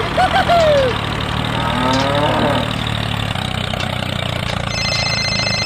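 Small tractor engine running steadily at idle, a low even hum. Two brief squeaky voice-like calls sound in the first couple of seconds, and a high steady beep starts near the end.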